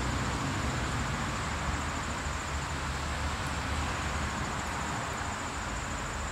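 Steady outdoor background noise: a continuous hiss with a low rumble underneath and a thin, steady high tone running through it.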